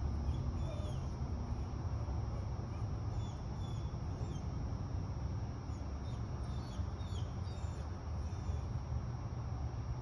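Dog whining in faint, short, high squeaks that come and go, the anxious vocalizing of a nervous dog holding position on its training mat, over a steady low hum of room noise.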